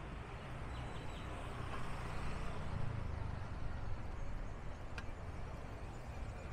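Steady street traffic noise heard while riding, with a low rumble that rises and falls, and a single short click about five seconds in.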